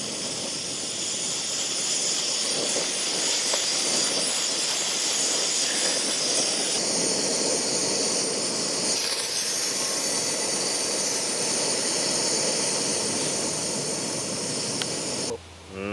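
Camp kettle heating for a brew, giving off a steady hiss of steam.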